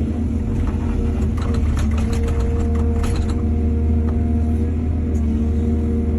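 Heavy diesel excavator engine running steadily under load, with a run of sharp metallic clanks and rattles from about one to three and a half seconds in.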